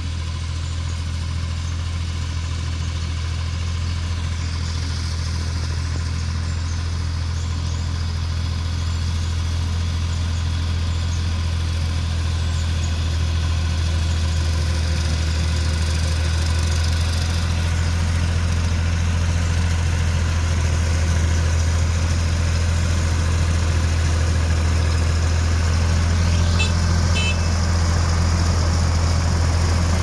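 Yanmar compact diesel tractor running steadily at constant speed while driving a rotary cutter (bush hog) through pasture grass. It grows gradually louder as it comes closer.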